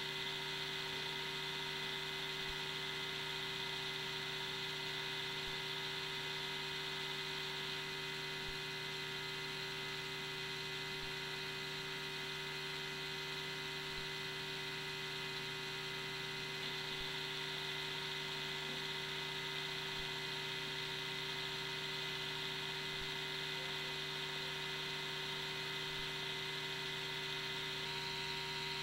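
Steady electrical hum with a high whine and hiss, unchanging throughout: electronic noise of the recording equipment.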